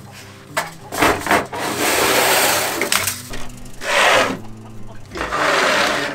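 Metal-tined rake scraping dry straw, shavings and droppings across a wooden coop floor in several strokes, each up to about a second long.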